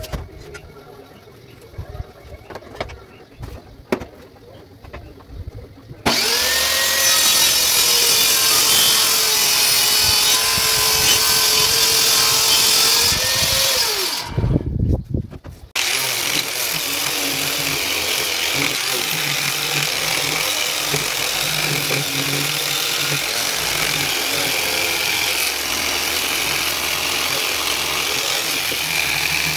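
Light handling clicks, then a table saw switches on about six seconds in, runs at speed for about eight seconds and winds down. After a brief low knock, an angle grinder with a sanding pad runs steadily against a wooden board for the rest.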